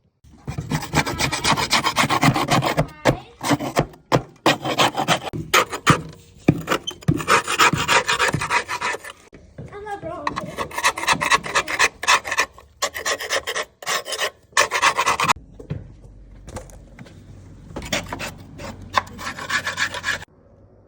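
Hard scraping of packed grass buildup off a lawn mower, in rough rasping strokes that come in bursts of a few seconds with short pauses between them.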